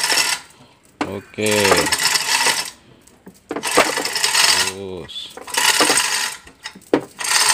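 Hand chain hoist being pulled in repeated strokes, each about a second long, its chain rattling and ratchet clicking as it lifts an engine.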